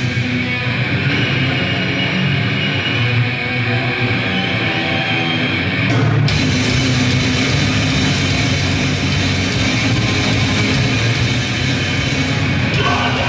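Grindcore band playing live at full volume, an instrumental passage led by distorted guitar. The sound grows fuller and brighter about halfway through.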